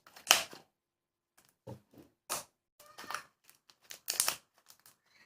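Handling noises: a series of short, separate crinkling and crackling sounds with silent gaps between them.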